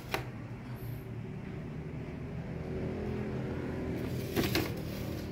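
Steady low engine-like hum that grows a little louder in the second half, with short scraping knocks as a mini hi-fi unit is turned around on a tiled floor.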